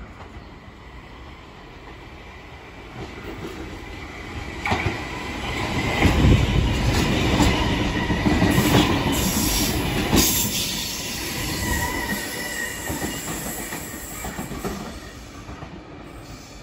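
Sydney Trains V set double-deck electric intercity train passing through the platform. The rumble builds for a few seconds, is loudest from about six to eleven seconds in with sharp clacks from the wheels over the rails, then fades away.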